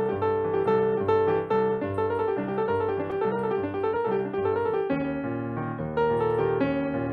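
Piano playing Brazilian music, a busy run of struck notes over repeating chords, with the harmony and bass moving lower about five seconds in.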